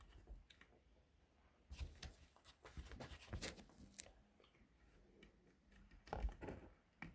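Lego plastic pieces being handled and fitted together: faint scattered clicks and light rustling, in two short clusters.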